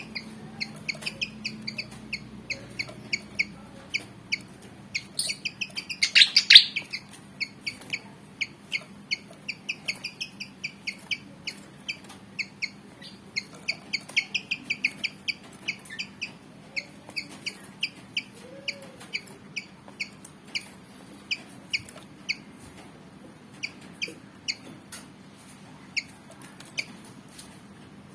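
Pied fantail (kipasan) calling: a long run of short, sharp, high chirps, several a second, with a louder burst of chirping about six seconds in.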